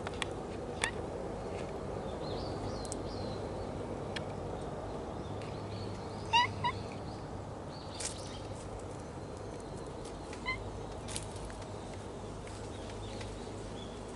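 Short cat meows: two in quick succession about six seconds in and a fainter one around ten seconds, over a steady outdoor background hum.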